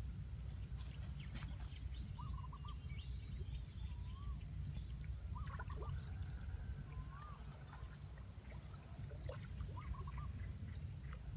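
Rural outdoor ambience: a steady high-pitched insect drone, like crickets, with short warbling bird calls every second or two over a low rumble.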